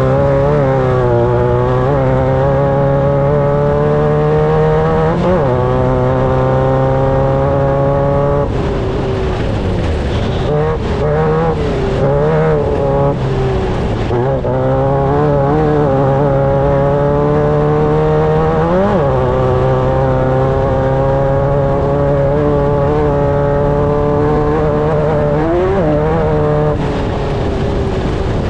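Off-road race vehicle's engine running hard under load. The revs climb steadily and then drop sharply several times, as at gear changes, with a choppier stretch of throttle going on and off partway through.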